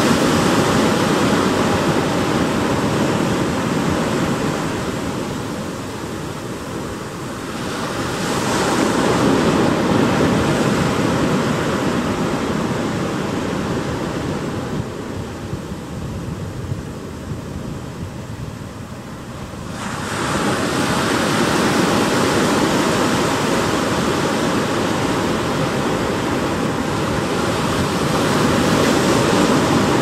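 Pacific Ocean surf washing onto a sandy, rocky beach: a steady rush of breaking waves that swells about eight seconds in, fades, and surges again sharply about twenty seconds in.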